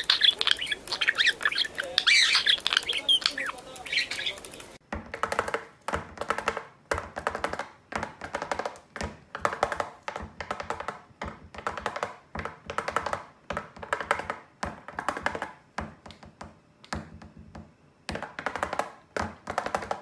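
A budgerigar chirping and chattering in quick high notes for about the first five seconds. It then gives way abruptly to rhythmic music with a steady beat, about two notes a second.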